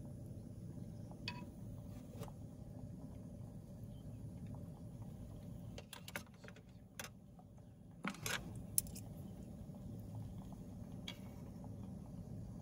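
Metal utensils clinking now and then against a stainless steel bowl and a small pot while tofu is scooped out of the pot, the sharpest clink about nine seconds in, over a steady low hum.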